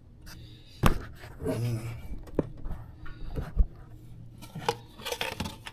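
Handling noise: a sharp click about a second in, then scattered lighter clicks, a low knock and rubbing, with a brief murmured voice early on.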